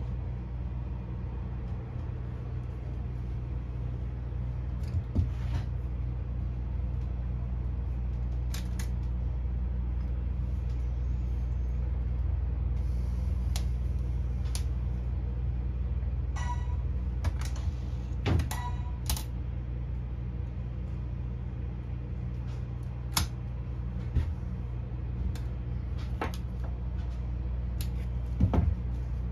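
Steady low machine hum with scattered clicks and taps of small tools and equipment being handled. Two short beeps come in the second half.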